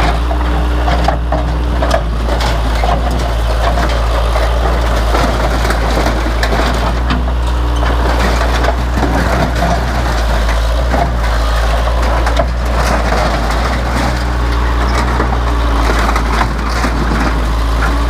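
Case 580 backhoe engine running steadily under continuous crunching and cracking, with scattered knocks, as the stake-body truck's wreckage is crushed.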